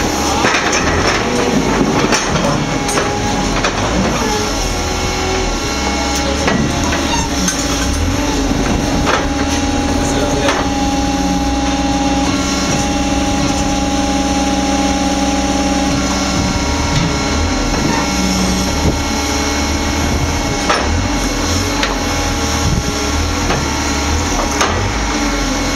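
Stone-splitting machine running with a steady hum as its toothed upper blade lowers onto a stone block, with scattered knocks and clicks.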